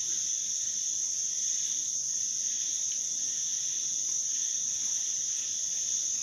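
Steady, high-pitched insect trilling that runs unbroken, with a fainter, lower-pitched band beneath it.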